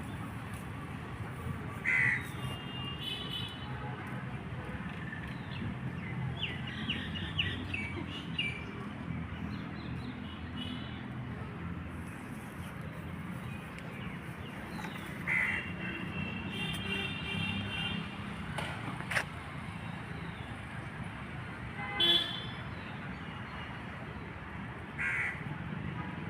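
Street traffic ambience: a steady rumble of passing vehicles, with vehicle horns honking several times and a bird calling now and then.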